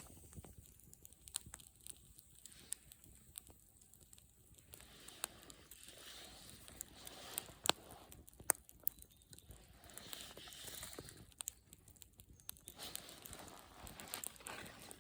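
Campfire crackling: scattered sharp pops and snaps over a faint, uneven crackle, with no instrument playing.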